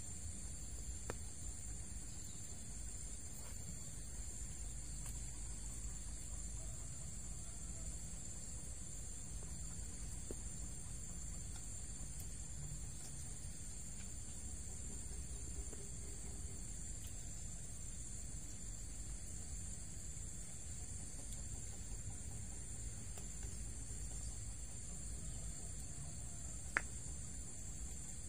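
Steady high-pitched chorus of crickets over a low steady rumble, with a single sharp click near the end.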